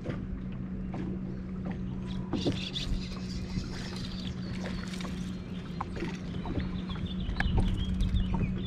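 A bass boat's bow-mounted electric trolling motor hums steadily, with scattered clicks and knocks as a small bass is hooked and brought aboard. Birds chirp near the end.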